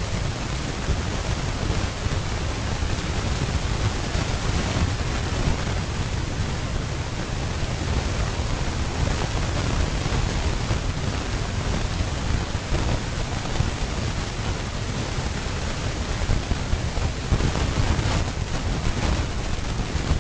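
Steady low rumbling noise with a hiss over it, even throughout, with no distinct sound standing out.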